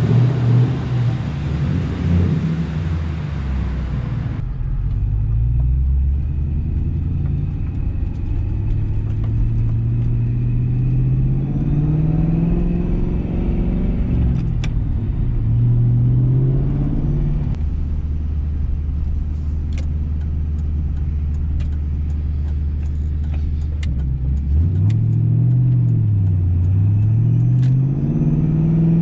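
Ford Mustang GT's V8 engine on the road: its pitch climbs and drops back several times as it pulls through the gears, then holds steady for several seconds before rising and falling again. A hissing road and wind noise cuts off about four seconds in.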